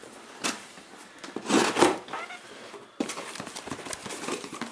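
Cardboard box flaps being lifted and handled: a short rustle, then a longer scraping rustle of cardboard. About three seconds in it gives way to light crackling handling noise.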